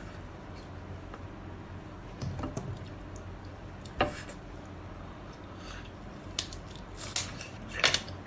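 Handling of food and utensils: a few scattered sharp clicks and taps, the sharpest about four seconds in, over a low steady hum.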